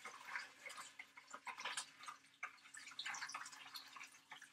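Warm water trickling and dripping faintly from a glass measuring jug into a mixing bowl, in small irregular splashes.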